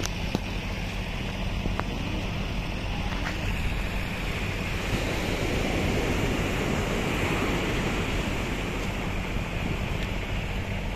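Sea surf breaking and washing up the beach, a steady rushing noise that grows louder for a few seconds in the middle, with wind on the microphone.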